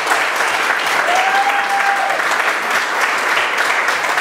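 Small audience applauding steadily, a roomful of hand claps. A brief held tone rises above the clapping about a second in.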